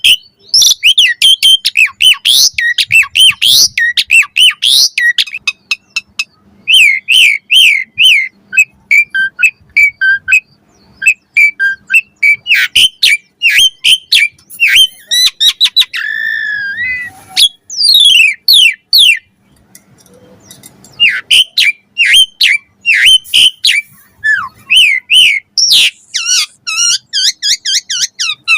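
Asian pied starling (jalak suren) singing a loud, fast, varied song of whistles, squawky chatter and quick rising and falling notes, with short pauses twice.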